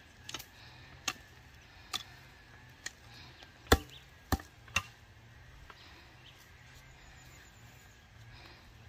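Garden fork chopping into dry, stony soil: about seven sharp strikes, roughly one a second at first and then closer together. The loudest strike falls near the middle, and the strikes then stop.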